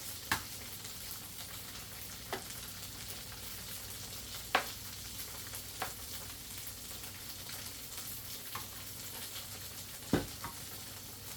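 Food frying in hot oil with a steady sizzle. About six sharp clicks or pops break through it, the loudest about four and a half seconds in.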